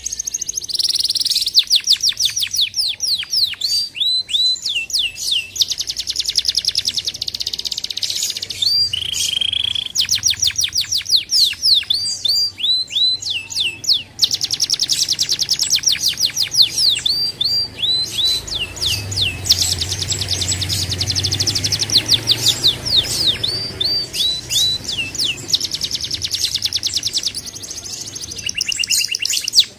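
Domestic canary singing a long, continuous song of fast trills and rolls of rapidly repeated, falling whistled notes, with short pauses between phrases.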